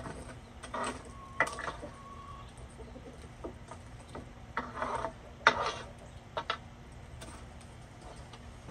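Long metal fire tool scraping and knocking against burning wood, embers and brick inside a wood-fired masonry oven: several short scrapes and clatters, the sharpest knock about five and a half seconds in.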